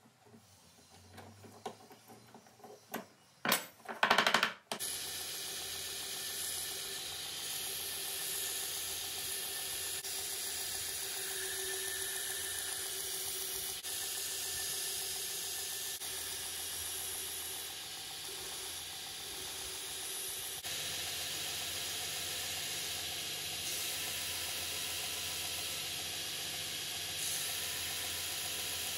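A few sharp knocks about four seconds in, then a belt grinder running with a knife handle scale pressed against the abrasive belt: a steady sanding hiss.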